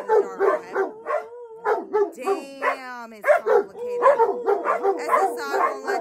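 A dog barking rapidly and without pause, about four to five short barks a second, with a few falling yelps about halfway through.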